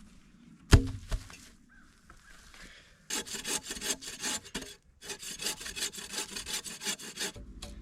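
A hand saw cutting through wood in two runs of quick, even strokes, after two sharp knocks about a second in.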